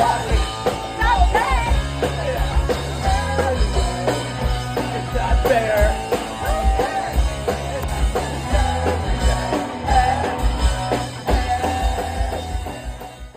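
Live rock band playing: distorted electric guitars, bass and drums with a wavering guitar melody on top, then the sound cuts off at the very end.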